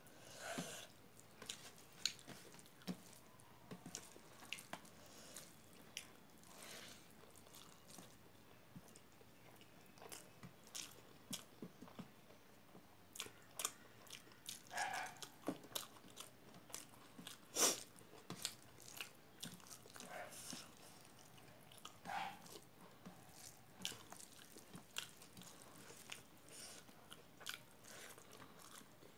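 Close-up eating sounds from rice and fermented soybeans eaten by hand: chewing and wet lip smacks, with many short sharp clicks throughout and one louder click about two-thirds of the way through.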